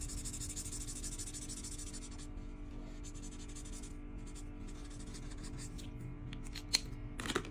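Felt-tip marker scratching across paper in quick back-and-forth colouring strokes, steady at first and then in shorter strokes, over quiet background music. A single sharp click comes near the end.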